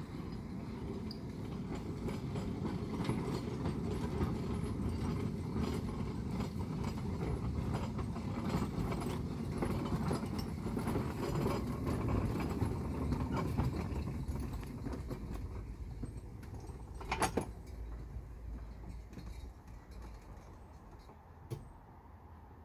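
Miniature garden-railway train, a small locomotive hauling two open wagons, running along the track: a steady rumble and rattle of wheels on rail that grows louder as it approaches, then fades as it passes. A sharp double clank comes about two-thirds of the way through.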